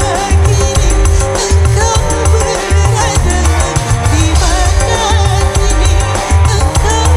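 A live band plays an amplified song through a PA sound system, with a heavy, pulsing bass beat and a wavering melody line over it.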